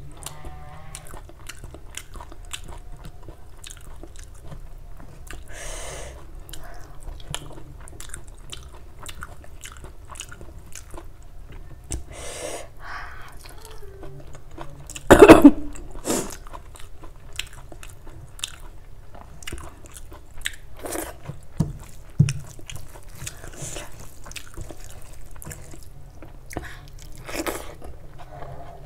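Close-up chewing and mouth sounds of a person eating rice and egg curry by hand: wet smacking, many small clicks and soft squishes of food in the mouth. About halfway through, one brief, much louder sound lasting about a second stands out.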